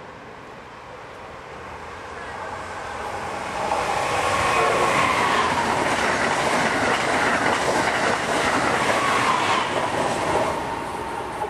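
Amtrak Acela Express electric high-speed trainset passing through a station at speed: a rush that builds as it approaches, stays loud for about six seconds as the coaches go by, then fades as it recedes.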